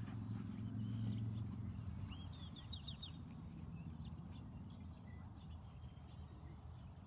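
A small bird chirps in a quick run of about six high notes about two seconds in, with fainter scattered calls after. Under it runs a low rumble that is strongest in the first couple of seconds and then fades.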